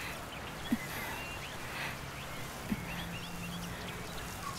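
Outdoor ambience with birds chirping, and a dull thud about every two seconds, twice.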